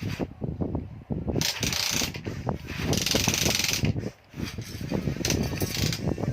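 Small electric motors and gearboxes of a Huina radio-controlled construction vehicle working, with constant clicking and ratcheting from the gears and three short bursts of high whirring as a motor runs.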